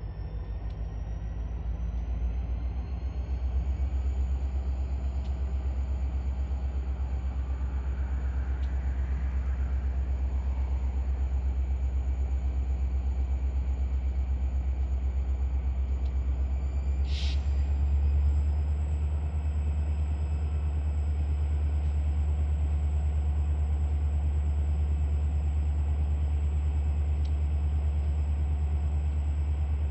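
Steady low vehicle rumble that grows slightly louder over the first few seconds, with a brief high hiss about seventeen seconds in.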